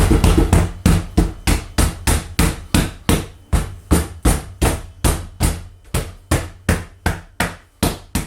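A wooden board on the CNC bed struck over and over, about three blows a second at an even pace, as it is tapped down onto the tape that holds it for cutting.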